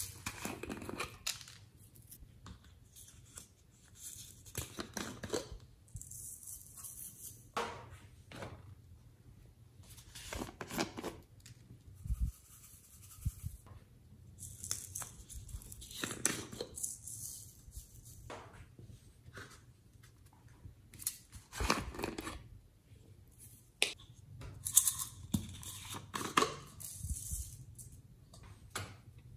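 Hands handling small plastic toy containers, opening them and shaking sprinkles and glitter out onto slime: scattered clicks, taps and rustling, one at a time with short quiet gaps between.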